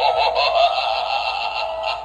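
Tinny music with a synthetic-sounding voice, played through a small speaker with no bass: the animatronic clown's built-in sound module.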